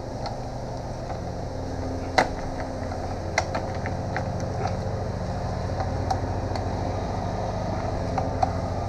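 Scattered light clicks and knocks from hands working a rubber oil drain tube down through a motorcycle's frame and bodywork, the sharpest about two seconds in, over a steady mechanical hum.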